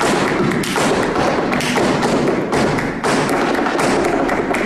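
Flamenco footwork (zapateado): rapid, dense heel and toe strikes of dance shoes on a stage floor, running on with short breaks.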